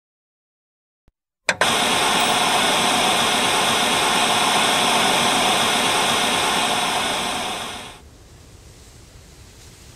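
Loud steady machine noise, a hiss with several steady tones running through it, starting abruptly with a click about a second and a half in and fading out near the end.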